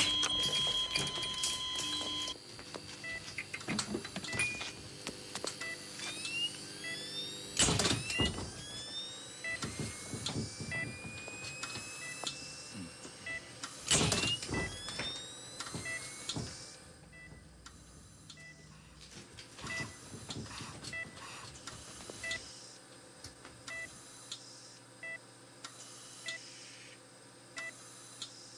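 Film sound design: short high beeps repeating about once a second, layered with rising sweeping tones and two loud hits about eight and fourteen seconds in. The layers thin out and grow quieter in the last third.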